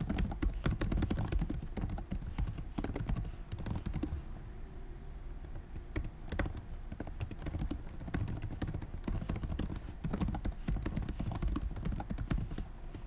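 Typing on a computer keyboard: a fast, irregular run of key clicks with a short lull about four seconds in.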